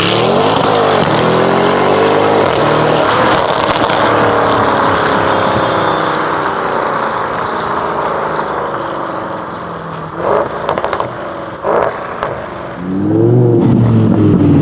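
Audi RS6 C7's twin-turbo V8 with a decatted Akrapovic exhaust accelerating hard, its pitch climbing and dropping back with each upshift, then held at high revs as it pulls away. A few short sharp cracks come a little over ten seconds in. Near the end a car's engine passes loudly, rising then falling in pitch.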